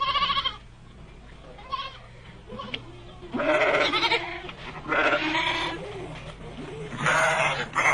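Racka sheep bleating, about five wavering calls in a row, each half a second to a second long, the loudest near the middle and end.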